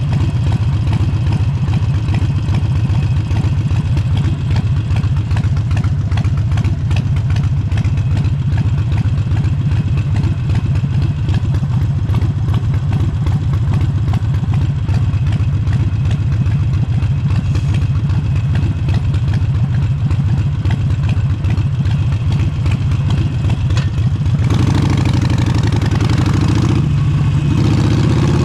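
Harley-Davidson Forty-Eight's air-cooled 1200 cc V-twin with an aftermarket exhaust, running steadily at low revs with a fast, even pulse. About 24 seconds in the note climbs and gets louder, with a rushing noise added on top.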